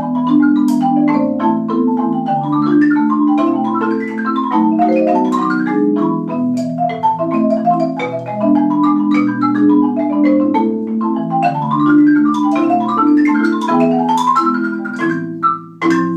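Marimba duet played four-hands on one Yamaha marimba: long sustained low notes under quick rising and falling runs of higher notes. Near the end the music breaks off and closes on a final struck chord.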